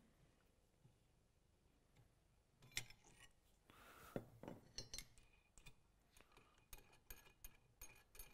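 Faint metallic clinks and ticks of steel wrenches and threaded steel parts as the adjusting screw and its counter nut are loosened and turned out of a safety relief valve's bonnet. Quiet for the first couple of seconds, then a scatter of short clinks with a brief rub.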